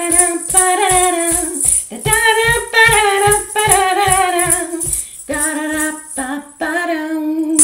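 A woman singing a wordless melody over a rhythmic shaker-like rattle and a steady low beat.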